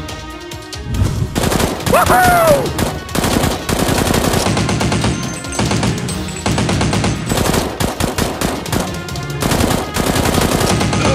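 Rapid bursts of automatic gunfire sound effects over background music.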